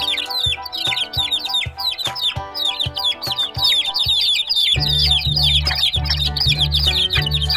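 Birds chirping in a fast run of short falling chirps, over background music with held notes; a deep bass line comes into the music about five seconds in.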